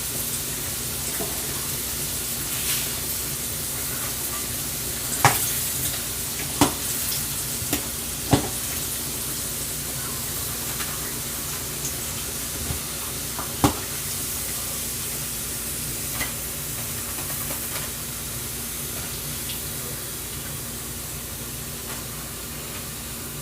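Pork chops frying in a pan with a steady sizzle, broken by a few sharp knocks.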